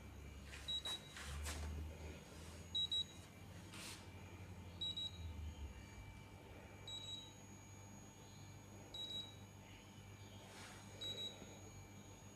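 Haier refrigerator's control panel beeping its fault alarm, one short high beep about every two seconds, signalling the HH error, an abnormal defrost sensor. A few brief knocks and a low hum in the first half.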